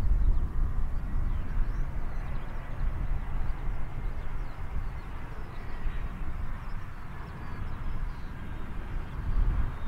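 Airbus A320-200 airliner on final approach, its jet engines a steady low rumble with a faint high whine.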